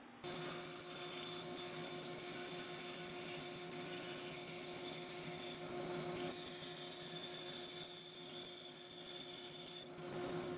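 A power tool's motor running steadily with a constant hum. It starts just after the beginning and stops shortly before the end.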